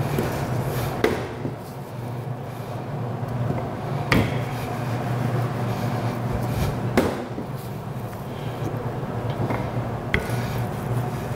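A plastic rolling pin rolling pastry dough under cling film on a stainless steel table, a steady rubbing roll with about three sharp knocks spaced a few seconds apart as the pin is set down and pushed.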